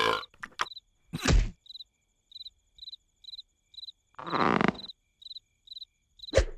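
Cricket chirping sound effect, short high chirps evenly spaced about three a second. A whoosh ending in a thump cuts in a little over a second in, and a short vocal sound comes around four and a half seconds.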